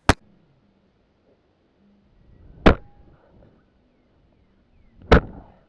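A football with a GoPro strapped to it is struck three times, each hit a sharp thud, loud because the microphone rides on the ball itself; faint rolling rumble between the hits.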